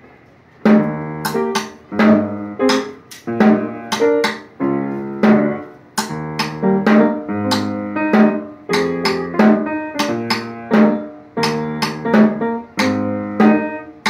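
Snare drum played along with accompaniment music of plucked guitar and piano chords in a steady beat. Sharp strokes come roughly twice a second, starting a little under a second in.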